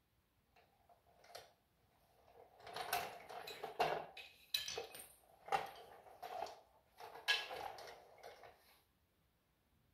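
Metal tools or parts clinking and rattling as they are handled, in irregular clusters of sharp metallic knocks. A few faint ticks come first, and the clatter runs from a couple of seconds in until shortly before the end.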